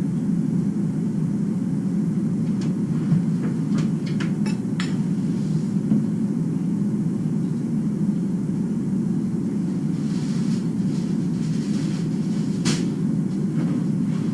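Steady low rumble with no clear source, with a quick run of sharp clicks about three to five seconds in and one louder click near the end.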